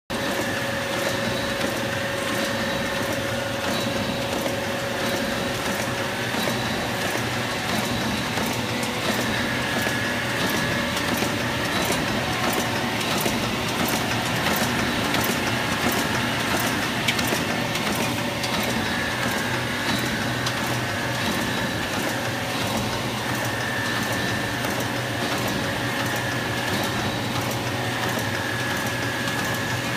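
Automatic end sheet tipping machine for bookbinding running steadily: a constant mechanical hum with regular clicking and a higher whine that comes and goes every few seconds.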